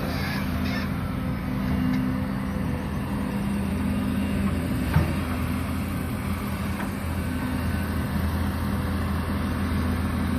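Excavator engine running steadily, with a single sharp knock about five seconds in.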